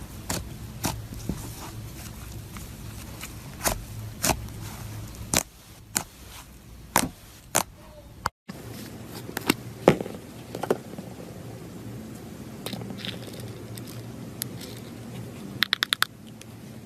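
Crunchy slime being squeezed and worked by hand, giving sharp, irregular crackles and pops over a low hum, with a quick run of about six clicks near the end.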